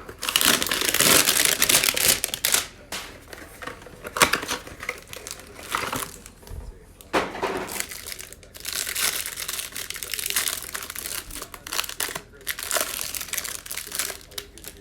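Plastic packaging on a trading-card hanger box crinkling and tearing in irregular bursts as the box is opened to get at the cards.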